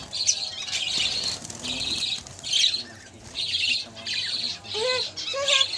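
A cage of budgerigars chattering and squawking in quick repeated bursts, with a few lower gliding calls near the end.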